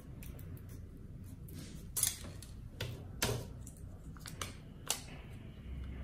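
Scissors making a few sharp snips and clicks while trimming a small candle-wick piece to size, with light handling rustle between them.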